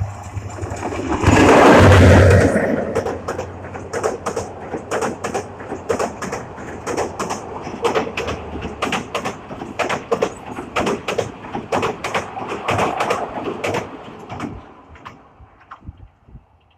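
A train passing close by: a loud rush as the locomotive goes past about a second in, then a long quick run of wheel clacks over the rail joints as the coaches or wagons follow, fading out near the end.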